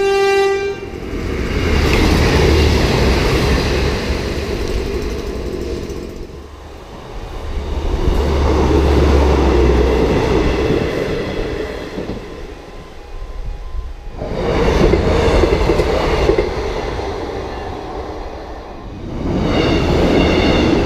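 Diesel multiple-unit passenger trains passing at speed over level crossings, one after another: engine and wheel noise swell and fade about four times. A higher whine rides over the last two passes. A held musical note dies away at the very start.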